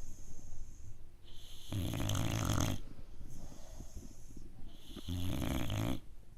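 Five-month-old boxer puppy snoring while asleep: two snores, one about two seconds in and another about five seconds in, with breathing between them.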